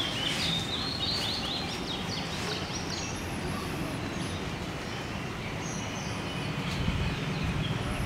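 Birds chirping in quick short notes over a steady background hiss, busiest in the first three seconds.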